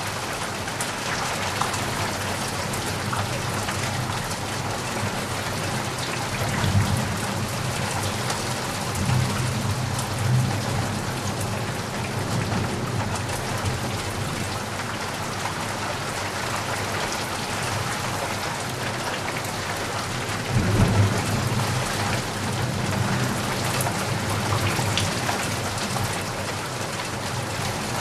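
Steady rain falling, with individual drops tapping and knocking outside a window. Low rumbles swell up a few times, at about seven, ten and twenty-one seconds in, the one near twenty-one seconds the loudest.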